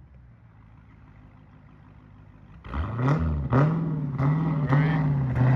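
Supercharged V8 of a 2018 Dodge Challenger SRT Hellcat, faint at first, then revved hard about two and a half seconds in, its pitch rising and dipping about five times in a row during a launch-control attempt.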